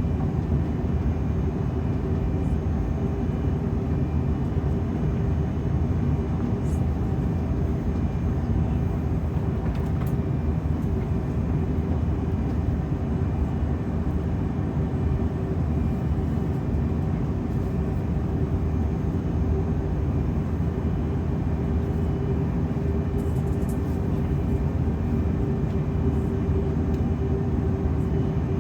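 Airbus A330-300's Rolls-Royce Trent 700 engines running, heard as a steady low rumble with a constant hum inside the passenger cabin.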